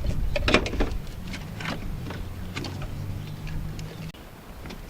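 Plastic-sheathed wiring harness being pushed and folded down into an engine bay: scattered clicks and rustles, busiest in the first second. A low steady hum runs through the middle and cuts off suddenly about four seconds in.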